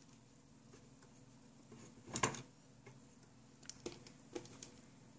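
Faint clicks and taps of small rubber loom bands being stretched onto the plastic pegs of a Rainbow Loom, with a louder cluster about two seconds in and a few single clicks near the end.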